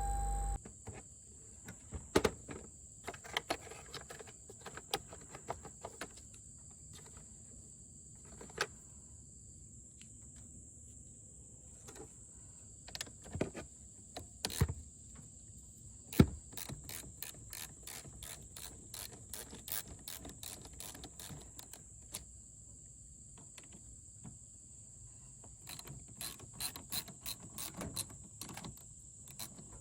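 Irregular mechanical clicks with short runs of rapid, ratchet-like clicking, over a steady high-pitched whine.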